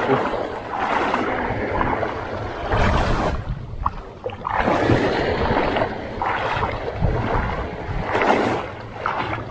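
Small sea waves breaking and washing through the shallows, rising and falling in surges every second or two, with wind on the microphone.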